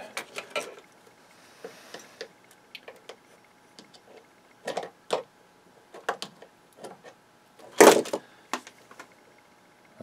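A small plug-in circuit board being worked loose from its connector on a metal server backplane by hand: scattered light clicks and scrapes, with the loudest knock about eight seconds in.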